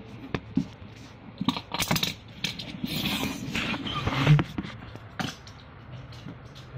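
Clicks and scraping of a small toy car being pushed and rolled across a tiled floor, with a louder knock about four seconds in.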